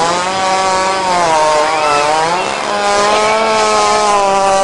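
Chainsaw engine running loudly at a high, steady speed; its pitch dips a little midway and comes back up.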